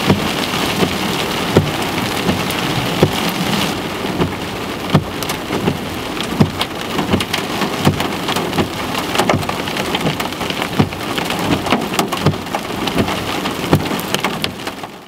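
Rain falling on a car's windshield and roof, heard from inside the car, with many single drops striking sharply and irregularly. A low rumble of thunder fades out in the first second.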